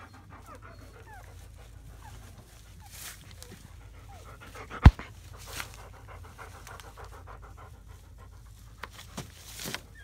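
German Shepherd mother dog panting rapidly and evenly, as she rests beside her newborn litter, with a few faint short squeaks from the newborn puppies. A single sharp knock sounds about five seconds in.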